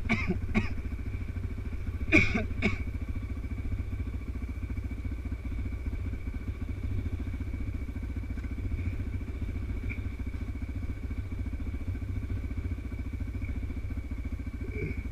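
Dirt bike engine idling steadily, with a brief louder clatter about two seconds in.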